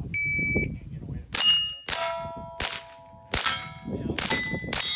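A shot-timer start beep, then a fast string of about six .22 rimfire rifle shots, with the steel target plates ringing after the hits.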